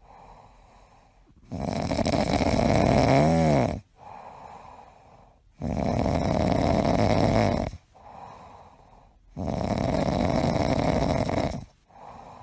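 A sleeping dog snoring loudly, like a tractor. Three long, rasping snores come about four seconds apart, with quieter breaths between them. The first snore carries a brief squeaky tone that rises and falls.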